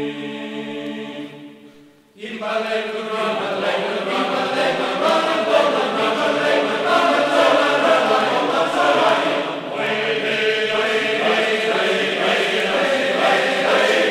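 Choral chant playing as background music: one sung passage fades out about two seconds in, and another starts abruptly right after.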